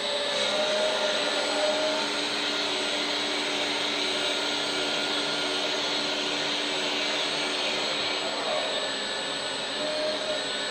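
Hydraulic pump of a 1/14-scale LESU Komatsu PC360 RC excavator running steadily with a whining hiss, its tone briefly rising a little in pitch near the start and again near the end.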